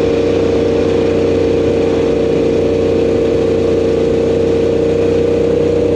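Motorcycle engine running at a steady cruising speed, a constant drone under the hiss of wind and road noise.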